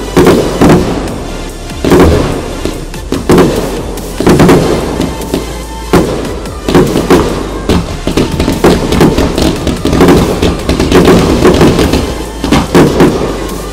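Display fireworks bursting loudly in rapid succession, a bang every second or less, with crackling between them.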